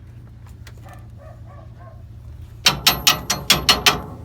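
A quick run of about seven sharp metal-on-metal strikes, roughly five a second, with a thin high ring through them: a hammer hitting the truck's steel axle hardware. They start suddenly about two and a half seconds in and stop about a second later.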